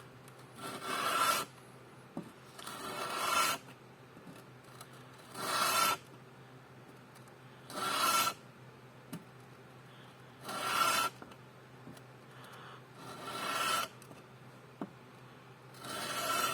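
A steel plane iron being pulled across wet 180-grit sandpaper to flatten its back: seven slow scraping strokes about two and a half seconds apart, each growing louder and stopping sharply. Light clicks between strokes as the iron is lifted and set back down.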